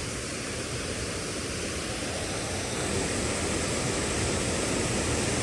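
Steady rushing of a waterfall: an even, unbroken noise that grows slightly louder about three seconds in.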